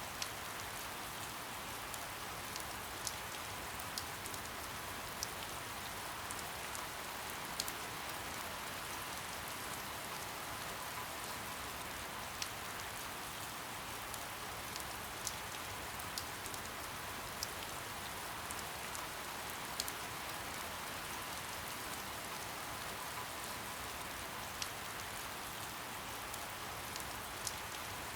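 Steady soft rain falling, an even hiss with scattered sharper drop ticks every second or two.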